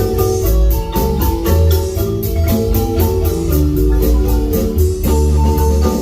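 Marimba band playing an upbeat tune: quick struck marimba notes over a deep bass line, with a steady fast beat of high percussion ticks.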